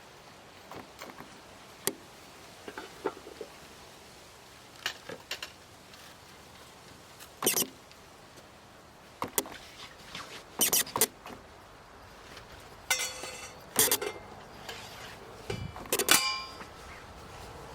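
Scattered short knocks and clicks of objects being handled, a few at a time, one near the end with a brief metallic ring.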